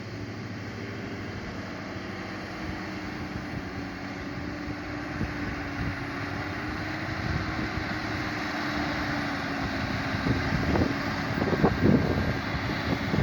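Tractor engine working steadily under load while pulling a plough, growing gradually louder. A few sharp thumps come near the end.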